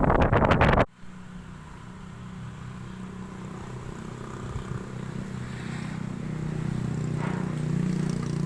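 Wind buffeting the microphone, cut off suddenly about a second in, then a steady low engine hum that slowly grows louder.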